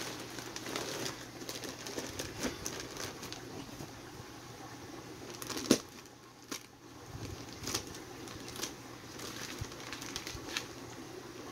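Handling noise from fish-shipping packaging: plastic crinkling with scattered small clicks, and one sharp knock about six seconds in.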